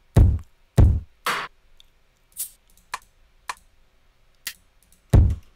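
Single electronic drum hits made from home-recorded foley samples, triggered one at a time from a drum rack: two deep kicks near the start and another near the end, a noisy snare-like hit about a second in, and several short, high percussion ticks in between.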